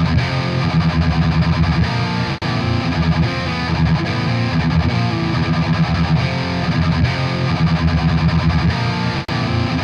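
Background rock music with a distorted electric guitar, playing on with two very short breaks, one about two and a half seconds in and one near the end.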